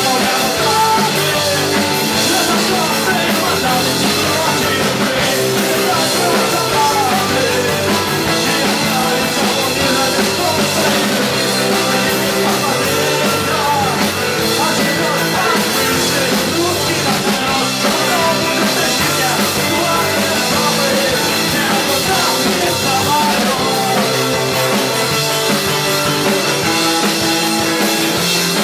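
A rock band playing live, with a drum kit keeping the beat.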